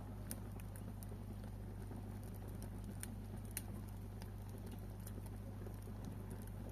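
Wood fire burning with irregular sharp crackles and pops over a steady low rumble of the flames.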